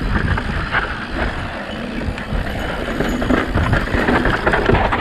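Yeti SB165 mountain bike descending a loose dirt trail: steady tyre rumble over the dirt, many small clicks and knocks from the bike rattling over bumps, and wind on the microphone.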